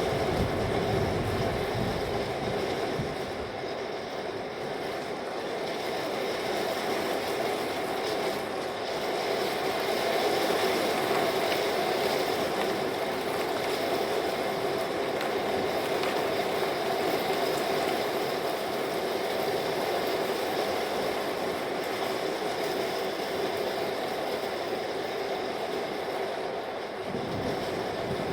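Thunderstorm sounds: a steady rush of storm noise with thunder rolling, a deeper rumble at the very start and again near the end.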